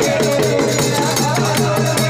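Live Gujarati folk devotional music: a dhol beaten by hand at a fast, steady rhythm, with other instruments playing along.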